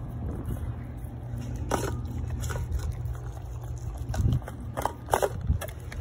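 German shepherd eating a raw BARF meal of meat and vegetables from a stainless steel bowl, chewing and biting, with a few sharp clicks along the way.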